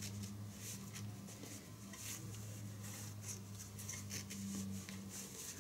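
Faint rustling and small clicks of a thigh bag's nylon straps and plastic buckles being handled and loosened, over a steady low hum.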